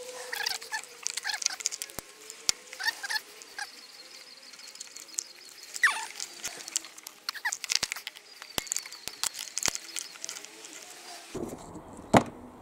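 Scattered clicks and rustles of wires and a plastic winch control box being handled, with a sharp click near the end. Birds chirp faintly in the background.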